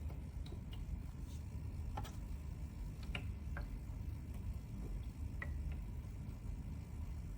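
USB mist humidifier running: a steady low hum with faint, irregular ticks scattered over it.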